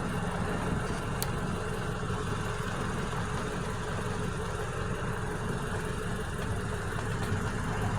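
An engine idling steadily as a low, even hum, with a faint click about a second in.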